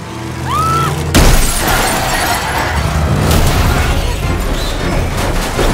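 A car crash in a film mix: a sudden loud impact with shattering glass about a second in, then continuing loud crashing noise, over a dramatic film score.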